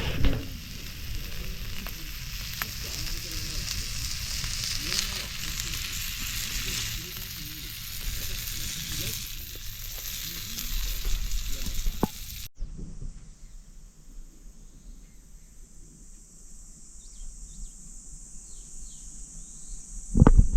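Meat sizzling on an iron griddle plate, a dense steady hiss for about twelve seconds. It then cuts off abruptly to a quieter steady chorus of insects chirping, with a brief loud noise right at the end.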